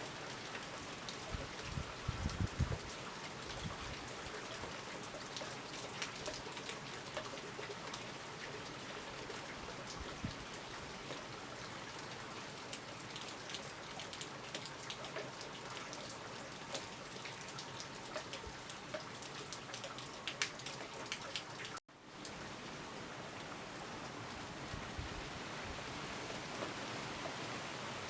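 Heavy rain falling steadily, with many individual drops clicking close by and a few low thumps about two seconds in. The sound cuts out for an instant about three-quarters of the way through, then the rain resumes.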